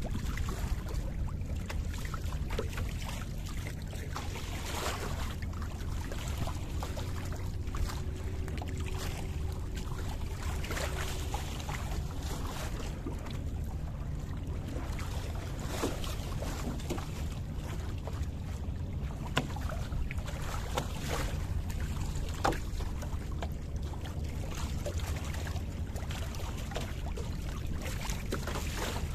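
Wind buffeting the microphone and water washing along the hull of a small wooden sailboat under way, with scattered light knocks from the boat.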